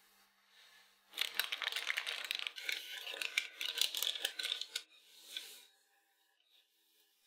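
Baking-paper liner crinkling and rustling, with light scraping against the metal round cake tin, as a baked sponge cake is eased out of it; the sound lasts about four seconds from a second in, with a shorter rustle just after.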